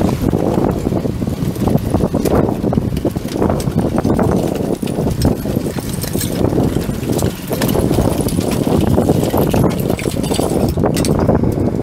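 Diesel refuse truck running, with steady low noise and irregular clattering knocks throughout.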